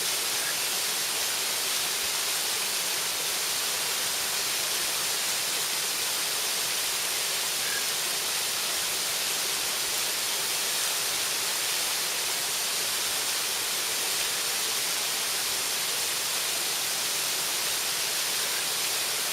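Waterfall: falling water making a steady, even hiss that does not change.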